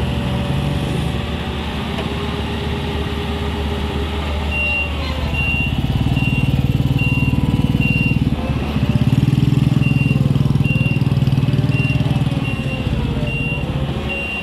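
A heavy vehicle's engine running and growing louder about halfway through, with a reversing beeper starting about four and a half seconds in and beeping somewhat under twice a second.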